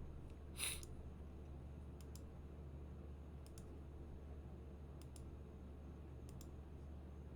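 Faint, scattered computer clicks, about six in all, over a steady low hum, with a short hiss just under a second in.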